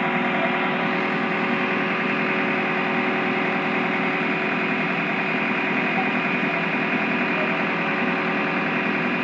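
Crawler excavator's diesel engine running steadily.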